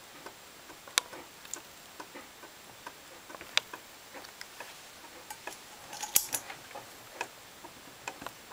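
Stepper motor stepping slowly as MOSFET transistors switch its coils in sequence: a run of short sharp clicks, about three or four a second, one per step, a few louder than the rest.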